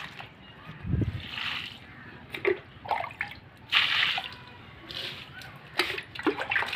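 Water being poured onto potted plants, splashing and trickling onto the soil in short irregular bursts, with a low thump about a second in.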